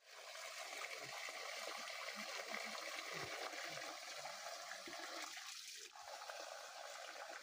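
Water running steadily as a thin stream spilling from a wooden pipe spout, a continuous trickling hiss.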